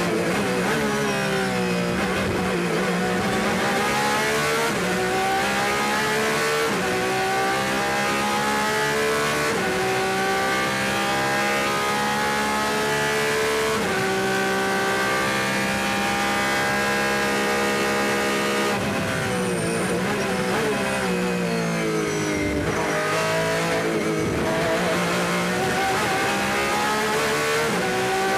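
Porsche 911 RSR race car's naturally aspirated flat-six, heard onboard, pulling hard up through the gears with a quick drop in pitch at each upshift. About two-thirds of the way through, the pitch falls away through several downshifts under braking, then climbs again as the car accelerates.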